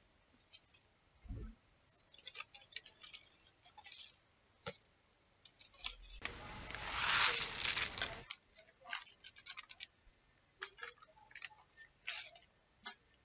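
Plastic instant-noodle packets crinkling and rustling in hand, with many short crackles and one louder burst of rustling lasting about two seconds, about six seconds in.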